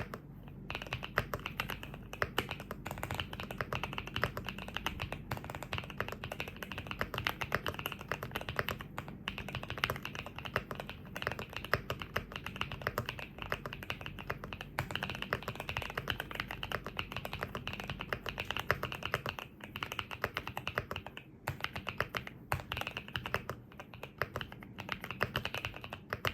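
Continuous fast typing on a LOGA Yaksa 65AL mechanical keyboard: a dense, steady run of key clacks with a few brief pauses.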